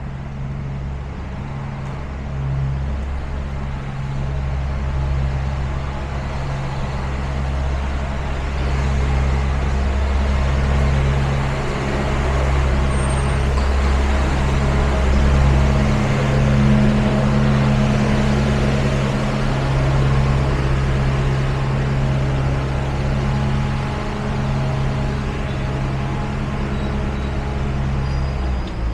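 Road traffic on a busy city street: passing cars' engines and tyres over a steady low engine drone, growing louder through the middle and easing toward the end.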